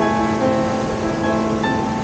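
Instrumental background music, held notes changing in pitch every half second or so.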